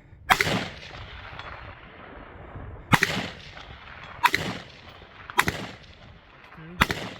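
Five rifle shots from an AR-15, spaced one to two and a half seconds apart, each with a short echo trailing off.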